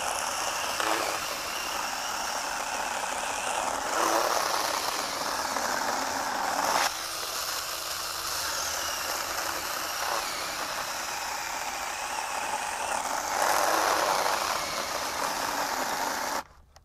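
A BeiHong 6-inch 21-volt cordless pruning chainsaw runs and cuts through a log. It gets louder for a few seconds twice as the chain works into the wood. Near the end the motor cuts out suddenly under only light pushing, which the user suspects is the saw's overload protection.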